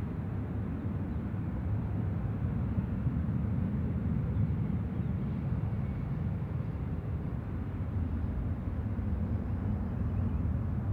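Steady rumble of a Southwest Airlines Boeing 737's jet engines climbing away after take-off, heard from a distance.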